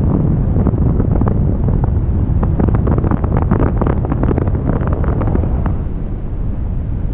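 Wind buffeting the microphone in flight under a paraglider: a loud, steady low rumble broken by many short, irregular crackles.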